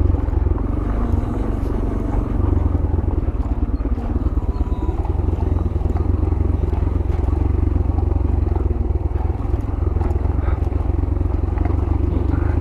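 Yamaha YBR 125G's single-cylinder four-stroke engine running steadily.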